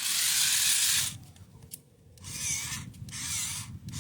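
Remote-control toy car's electric motors and gears whirring as it is driven, first as a steady hiss, then after a short pause in several brief bursts, each with a slight wavering whine.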